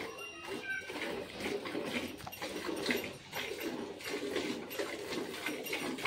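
Hand-milking a cow into a metal bucket: rhythmic squirts of milk from the teats hissing into the pail, about two or three a second.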